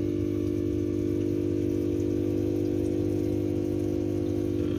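Aquarium pump humming steadily with water trickling in the tank.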